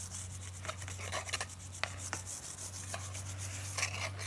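Steel wool scrubbing a grill grate: irregular rasping scrape strokes with scattered light clicks.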